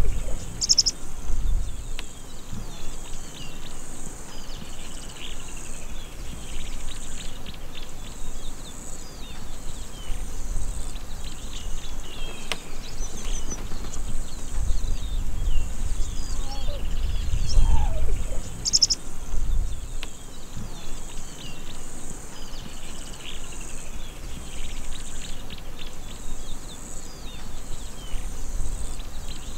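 Grassland daytime ambience: a steady high insect buzz with many small birds chirping over it, and a few low rumbles swelling in and out, the strongest just past the middle.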